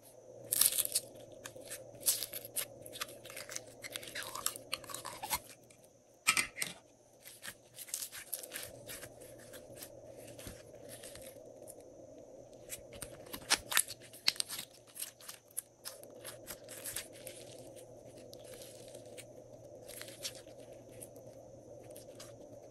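Glossy slime squished, folded and stretched by hand: dense sticky crackling and popping clicks, with sharper, louder snaps in the first few seconds and again about halfway through.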